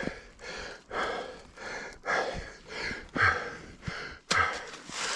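A mountain biker breathing hard and fast from the climb, about two breaths a second. A single sharp knock comes about four seconds in.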